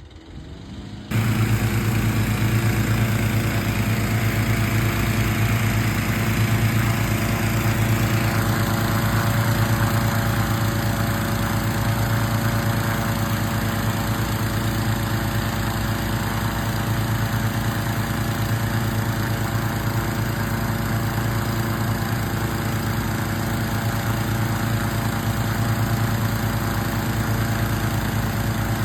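An engine running steadily: a loud, even drone that starts abruptly about a second in and holds the same pitch throughout.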